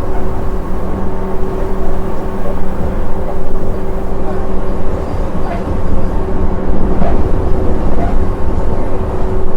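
Train running, a steady low rumble with a constant hum over it and two faint clicks in the second half.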